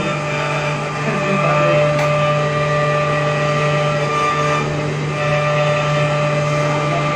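The 3 kW spindle of a Remax-6060 metal CNC router milling steel: a steady whine made of several held tones over a hiss of cutting noise, holding level throughout.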